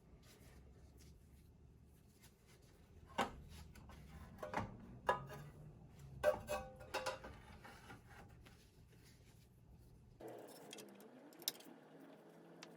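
Light metallic clinks and knocks, several with a brief ring, from metal parts of a 1988 Olympia Maximatic espresso machine being handled and fitted back together during reassembly.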